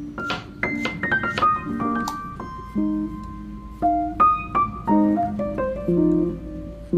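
Background piano music: a gentle melody of single notes over soft low chords.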